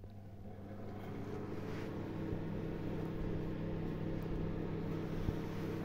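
An electric machine switched on, its motor hum building over the first two seconds and then running steadily.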